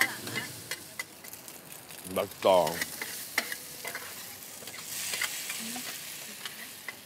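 Radish cake frying in pork lard and soy sauce in a street-stall wok: a steady sizzle, with many quick clicks and scrapes of the metal spatula against the wok as it is stirred.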